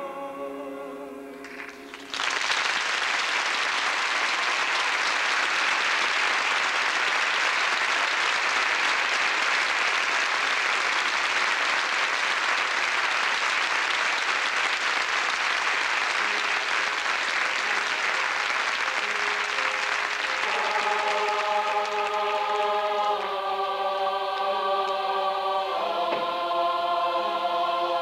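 A male solo voice ends on a held note, then an audience breaks into loud applause about two seconds in. Near the end the applause fades as a choir starts singing sustained chords.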